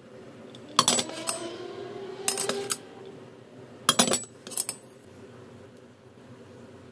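A cast iron Dutch oven and its lid being handled: about four short metal clinks and knocks, the first followed by a brief ringing.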